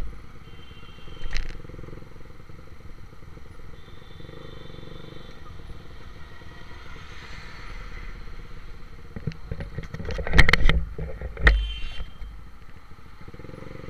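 Motorcycle engine and road noise picked up by a camera mounted on the bike's handlebars while riding in traffic. A short jolt about a second in and a cluster of loud knocks and rattles around ten to eleven and a half seconds in stand out over the steady running sound.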